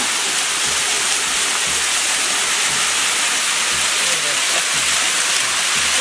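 Small waterfall pouring down a rock face and splashing into a pool, a steady rushing noise.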